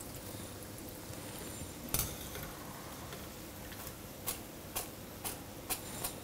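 A metal wire strainer clinking against the frying pan and plate as fried shankarpali are scooped out of the oil, with the hot oil sizzling faintly behind. There is one sharper knock about two seconds in, then four light clicks close together near the end.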